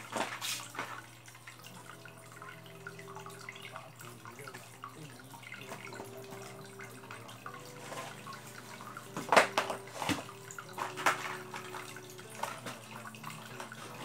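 Water dripping and trickling into an aquarium tank, over a steady low hum, with a few louder splashes about two-thirds of the way in.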